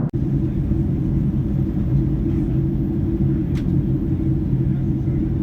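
Steady low rumble of a Boeing 767-300ER airliner cabin in flight, the engine and airflow noise heard from a passenger seat. The sound drops out for a split second at the very start.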